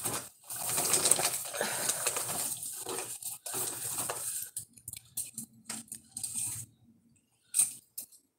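Jewelry and its packaging being handled and rummaged through: a dense rustle for about four seconds, then scattered clicks and taps that thin out, with two more near the end.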